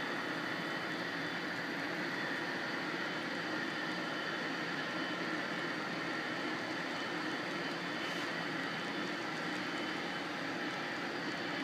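Model railroad freight cars rolling past on track: a steady, even noise of small metal wheels running on the rails.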